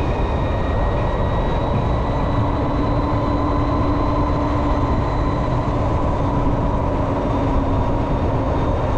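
Steady wind and road noise from riding the 2022 LiveWire One electric motorcycle at road speed, with the electric motor's steady high whine underneath. A lower steady hum joins about two seconds in and fades near the end.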